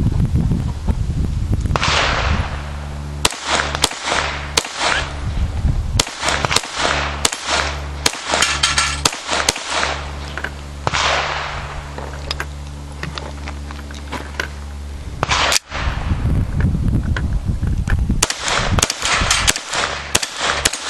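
.22 LR semi-automatic pistol shots: a spaced string of about ten shots, a single shot later, then a quicker string of shots near the end, over a steady low rumble.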